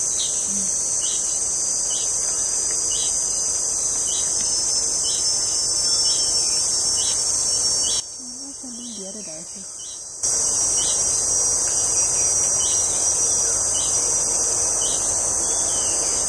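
Juvenile ochraceous bulbul giving short begging calls about once a second, calling for its parents to bring food, over a loud steady high-pitched insect drone. Both drop out for about two seconds near the middle.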